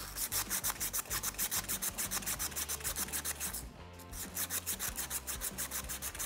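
Emery tape pulled quickly back and forth around a steel frame tube, scrubbing off scale, rust and grease before welding. Rapid, even rubbing strokes, about five or six a second, with a short pause about four seconds in.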